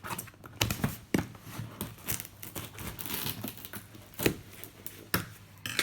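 Packaging being torn open by hand: security tape ripping and wrapping crinkling, in a run of sharp crackles and rips.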